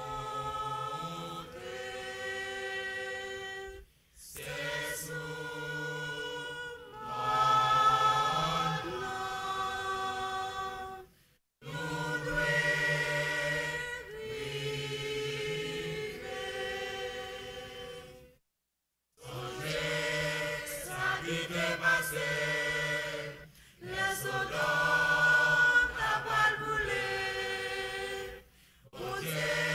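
Church choir singing unaccompanied in long held phrases, each ending in a brief silence before the next begins.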